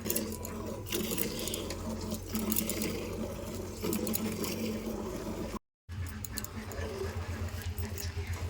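Hand-milking a cow into a bucket: jets of milk squirting into the pail in a quick, regular rhythm. There is a brief dropout in the sound about two-thirds of the way through.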